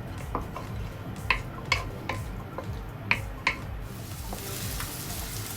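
Onion sautéing in a little oil in a pan, stirred with a utensil that knocks and scrapes against the pan about six times. The sizzle grows louder near the end.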